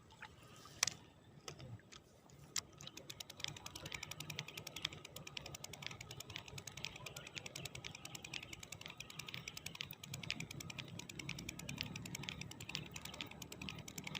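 Ultralight fishing reel being cranked, its mechanism ticking rapidly and steadily as the lure is retrieved. The ticking starts about two and a half seconds in, after a few separate clicks.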